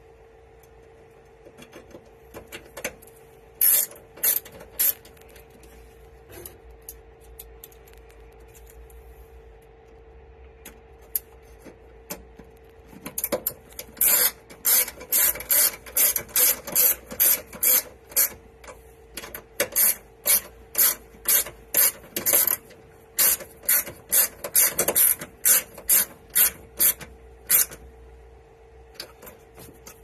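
A screwdriver driving number 6 self-tapping screws by hand into a metal panel. Scattered clicks and scraping come first, then from about halfway in a run of sharp, rhythmic clicks about two a second as the screw is turned home. A faint steady hum lies underneath.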